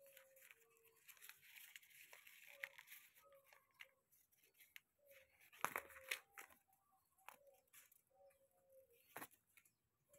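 Faint tearing, crackling and clicking as a calico cat worries at and chews its prey on the ground, with a few sharper clicks. Short faint chirps repeat throughout.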